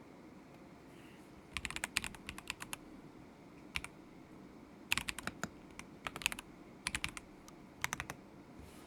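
Typing on a KZZI K75 Pro mechanical keyboard with Moment linear switches: short bursts of quick key clacks with pauses between them, starting about one and a half seconds in and stopping shortly before the end.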